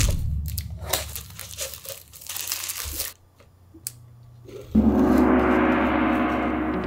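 Crinkling and tearing of a cup ramen's packaging as it is opened to add hot water. About five seconds in, background music begins.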